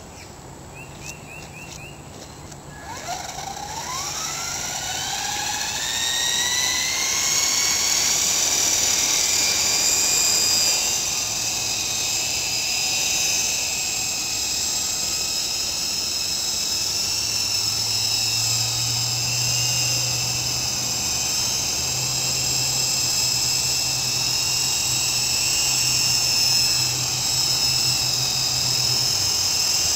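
Hummingbird FP fixed-pitch electric RC helicopter spooling up: a few clicks, then about three seconds in the motor and rotors start with a whine that rises steeply in pitch and settles into a steady high whine. It is running on main and tail rotor blades repaired with glue.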